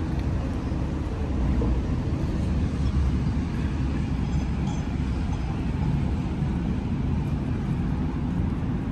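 A large yacht's diesel engine running as she manoeuvres out of the berth: a steady low rumble.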